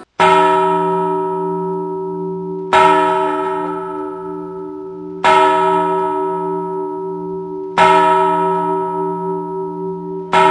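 A church bell tolling slowly, five strokes about two and a half seconds apart, each one ringing on and fading before the next.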